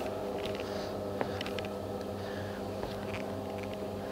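Steady hum of bowling-alley machinery at a few fixed pitches, with scattered faint clicks and one small knock about a second in.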